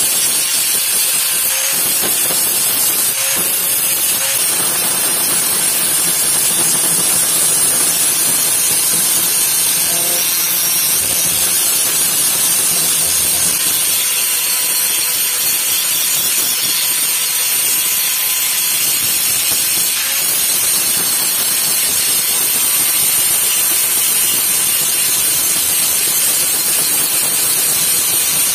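Handheld electric angle grinder running steadily with its abrasive disc pressed against an old steel knife blade, grinding the metal and throwing sparks: a continuous high hiss with a faint steady motor whine underneath.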